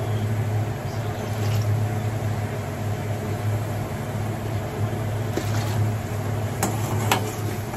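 Steady low mechanical hum and rumble of a kitchen, with a few light clinks of a metal spoon against an aluminium pan near the end as the broth is stirred.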